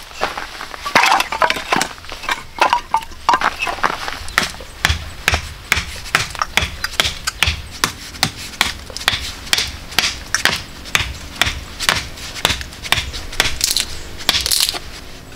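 Rapid series of sharp knocks and cracks, about two to three a second, with crunching and rubbing in the first few seconds.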